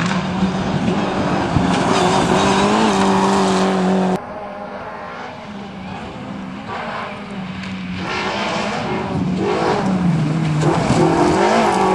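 Mitsubishi Lancer Evolution rally car's engine running hard as it slides past on loose gravel. An abrupt cut about four seconds in brings a Peugeot 206 rally car approaching, its engine growing louder. Near the end its engine note dips and climbs again.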